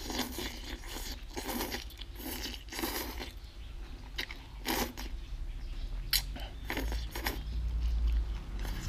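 A person eating saucy stir-fried noodles, slurping them off chopsticks and chewing, with a string of short, wet sucking bursts several times over.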